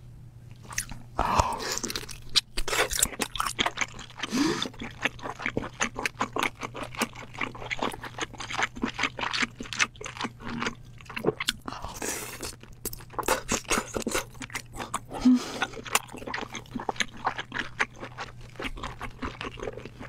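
Close-miked eating sounds of sauce-coated king crab and abalone: wet chewing and biting with dense, irregular crackling mouth clicks throughout.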